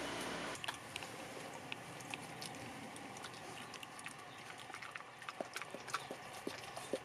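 A steady background noise drops away about half a second in. After that come scattered faint clicks and ticks from a dog moving about close up, over low background hiss.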